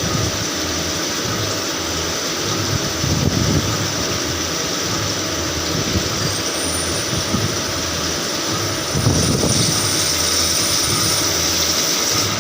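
CNC machine running with a steady mechanical noise and an uneven low rumble. A thin high whine comes in about six seconds in and stops about five seconds later.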